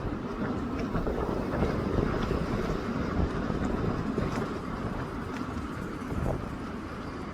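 Wind buffeting the microphone: a steady, irregular rumble.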